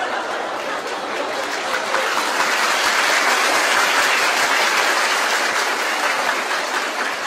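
Audience applauding, a dense patter of clapping that eases off near the end.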